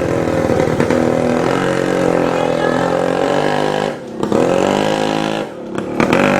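A motor engine running steadily. It eases off briefly about four seconds in and again near the end, and its pitch rises each time it picks back up.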